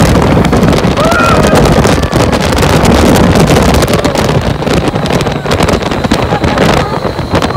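Strong wind buffeting the microphone and a rush of air as an open Test Track ride vehicle speeds around the banked outdoor loop, over the steady rumble of the car on the track.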